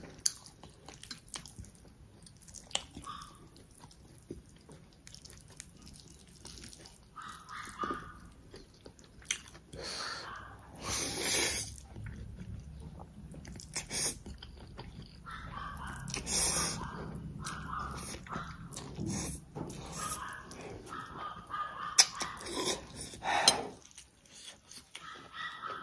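Close-up eating sounds: a person chewing and slurping black bean instant noodles, with wet mouth clicks. Longer, louder slurps come about ten seconds in and again around sixteen seconds.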